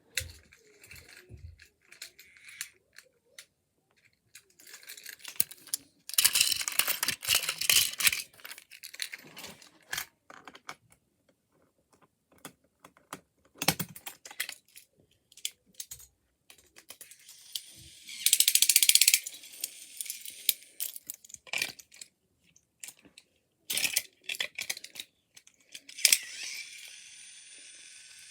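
A plastic toy train and its packaging being handled and unboxed: scattered clicks and rattles, with two longer rustling bursts. A steady sound starts near the end.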